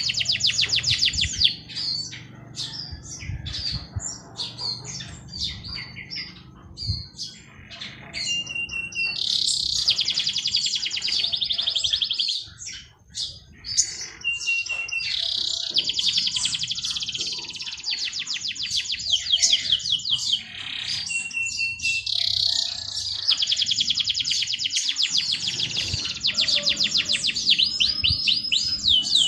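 Songbirds singing: long, fast trilled phrases that come back every few seconds, some of them opening on a short steady whistle, with scattered chirps in between.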